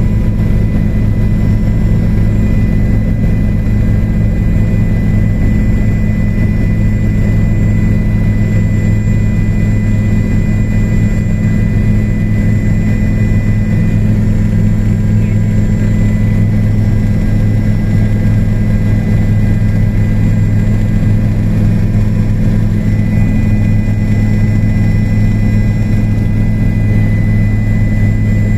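Helicopter in flight, heard from inside the cabin: a loud, steady drone of engine and rotor with a thin, high whine over it.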